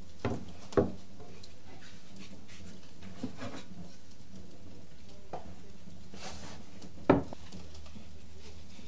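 A bowl and a wooden bread peel knocking on a wooden worktop while dough is turned out onto the peel: two short knocks near the start, a few faint ticks, and one louder knock about seven seconds in, over a steady low background.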